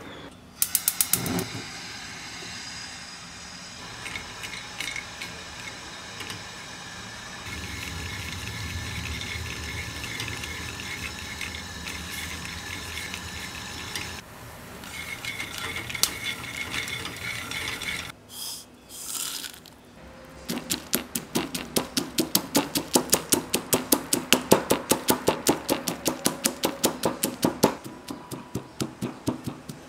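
Peanuts roasting in a frying pan. About two-thirds of the way in, a stone mortar and pestle takes over, pounding the roasted peanuts in quick, regular strikes of about three to four a second; these are the loudest sounds.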